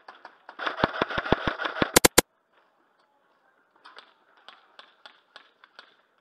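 Airsoft gunfire close by: a rapid string of shots for about a second and a half, ending in three sharp cracks close together, then fainter scattered shots near the end.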